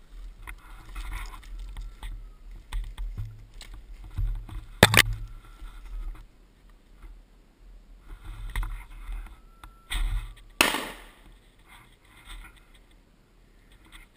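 Footsteps crunching and scraping through dry bracken and brush on a slope, with a few sharp cracks, the loudest about five seconds in and another at about ten and a half seconds.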